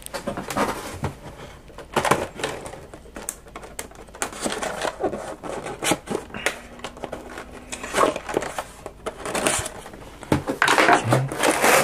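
Cardboard and plastic action-figure packaging being handled and opened with scissors: irregular rustling, crinkling and clicking, busier near the end.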